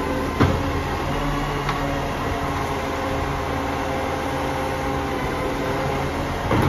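Side-loader garbage truck's engine and hydraulics running steadily while its automated arm lifts a wheelie bin, tips it into the hopper and lowers it back. There is a sharp knock about half a second in and another near the end.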